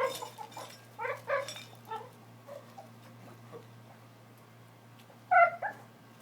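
Boxer dog making short vocal noises in bursts, a few in the first two seconds and a louder one near the end.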